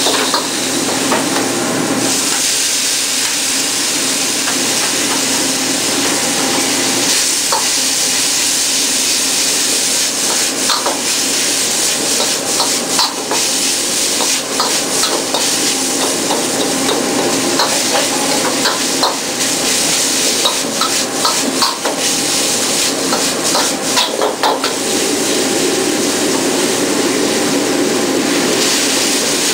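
Food stir-frying in a wok over a high-flame restaurant wok burner: loud, steady sizzling, with the metal ladle scraping and clicking against the wok again and again. The sizzling jumps up about two seconds in.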